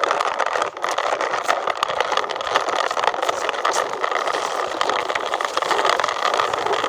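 A toy vehicle moving: a steady rattling whir with fine clicking throughout.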